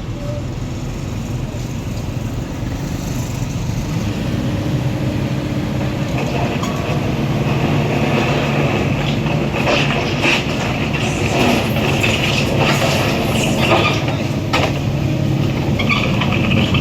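Heavy diesel earthmoving machinery running, its engine drone steady and growing louder, with metallic squealing and clanking from about eight seconds in.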